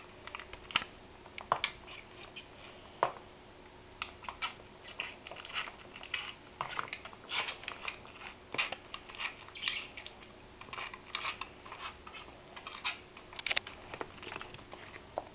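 Budgerigar chattering: a quick, irregular run of soft clicks and short high chirps, with a faint steady hum behind.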